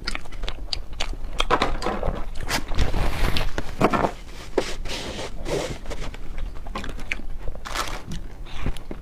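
Close-miked mukbang eating: a person biting into and chewing crunchy dessert, with a steady run of crisp crunches and clicks.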